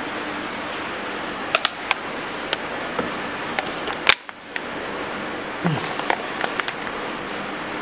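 Scattered sharp clicks and light taps from plastic coffee capsules and sealing film being handled at a capsule sealing machine, over a steady hiss. The loudest click comes about four seconds in, followed by a brief drop in the background noise.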